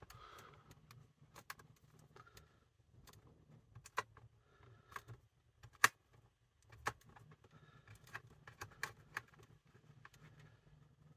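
Irregular small metallic clicks and scrapes of a screwdriver driving a screw into a radio's chassis, forced with an ill-fitting screwdriver, over a faint low hum.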